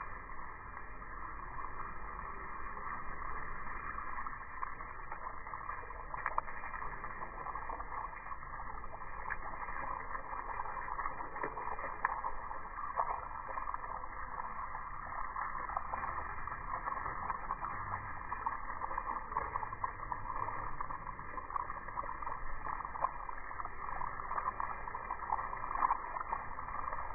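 Spray from a garden hose hitting a block wall and lawn, heard slowed down with the slow-motion footage: a steady, dull water hiss with faint crackles of drops.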